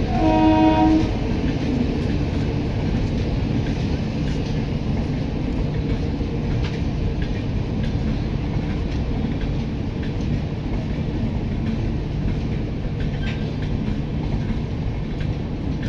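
Passenger coaches of an express train rolling past on the tracks, a steady low rumble with faint wheel clicks. A short train horn sounds in the first second.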